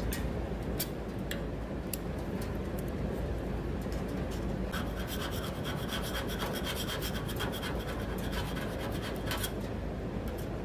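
Scratching and rubbing against a bare, media-blasted steel fender, going on throughout with scattered light clicks and a steadier stretch of scraping in the second half, as if residue of body caulking sealant is being scraped off.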